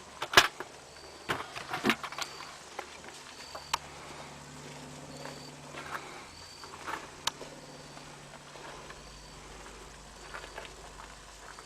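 Scattered sharp clicks and knocks, the loudest about half a second in and a cluster around two seconds, over a faint short high chirp that repeats every second or two.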